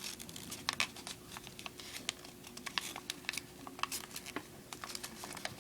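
Paper crinkling and crackling in short irregular ticks as the folds of an origami model are pressed and pushed in by hand.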